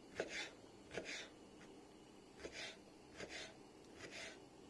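Kitchen knife cutting raw pork fat into small cubes on a wooden cutting board: five faint strokes at uneven intervals, each a light tap on the board followed by a short scrape.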